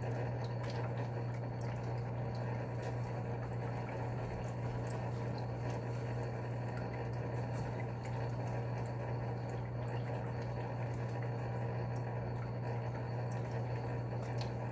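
Aquarium equipment running: a steady low hum with water bubbling and trickling, plus a few faint clicks and rustles.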